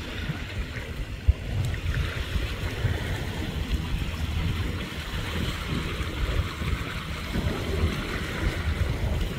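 Wind buffeting the microphone in uneven low gusts over the hiss of choppy, wind-whipped water. There is one brief bump about a second in.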